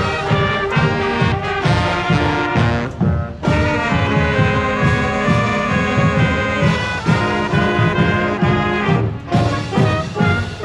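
High school marching band playing: brass horns (trombones and trumpets) carrying a tune over a steady drum beat.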